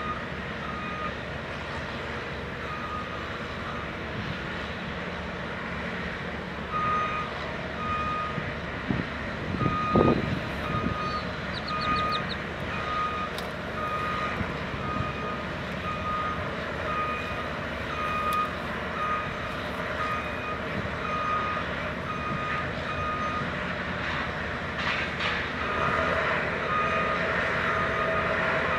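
Heavy construction equipment's backup alarm beeping in a steady repeating pattern over the low rumble of machinery, with a louder sweeping sound about ten seconds in.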